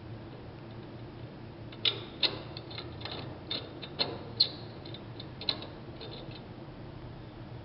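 A scatter of sharp clicks and taps, about a dozen starting around two seconds in and stopping after six, as a hand works the nut and bolt on top of a steel lathe-attachment post, over a low steady hum.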